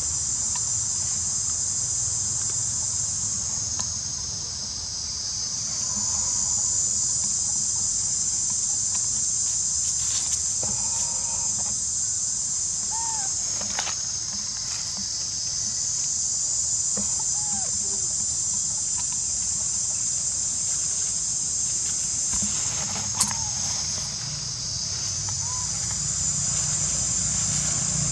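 Dense, shrill insect chorus, high and steady, dipping and swelling back twice, with a low rumble underneath and a few faint short chirps.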